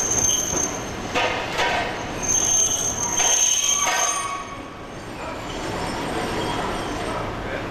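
Iyotetsu streetcar moving off along the track: the steel wheels squeal, a high steady tone heard twice, with a run of sharp clicks from the wheels on the rails in between. The tram sound dies away after about four seconds, leaving street background.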